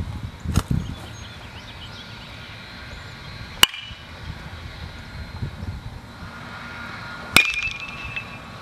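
Baseball bat hitting pitched balls in batting practice: two sharp cracks about four seconds apart, the second followed by a brief ring. A fainter knock comes near the start.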